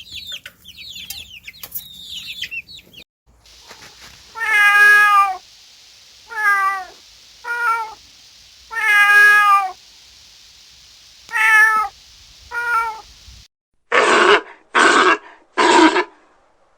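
A cat meowing six times in high, slightly wavering cries of about half a second to a second each, after some faint high chirping at the start. Near the end come three short, loud, harsh calls from another animal.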